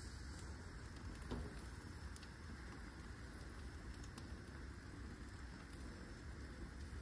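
Steady low hiss from a grill with meat and tortillas on the grate, with a few light clicks of metal tongs, the loudest about a second in.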